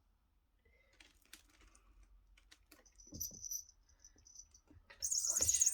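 Scattered light tapping and clicks, then a high-pitched electronic chirp from a cat toy: a short, faint one about three seconds in and a louder, warbling one near the end.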